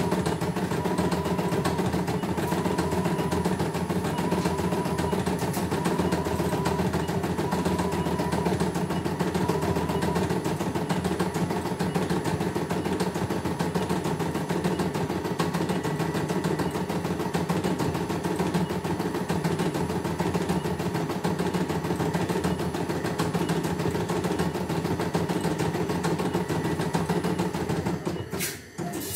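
CNY E900 computerised embroidery machine stitching a design: a steady, rapid needle clatter over a steady motor hum. The sound dips briefly near the end.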